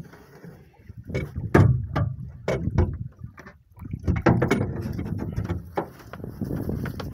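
Water slapping and sloshing against the hull of a small fishing boat at sea, with irregular knocks and a few heavy thumps on the boat.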